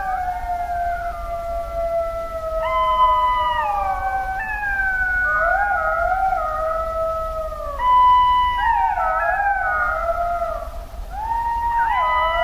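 Golden jackals howling in chorus: several overlapping wailing calls that rise, hold steady notes and fall, with new voices coming in about 2.5 s, 8 s and 11.5 s in.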